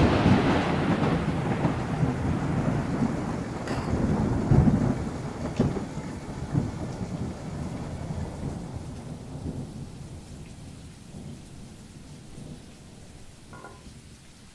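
Thunder rumbling after a sudden clap, rolling with a second swell about four seconds in and then fading slowly away.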